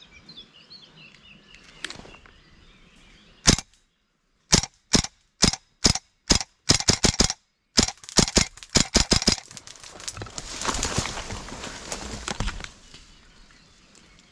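Gas blowback airsoft gun firing: a single shot, then shots about half a second apart, then faster strings of shots. A couple of seconds of rushing noise follow near the end.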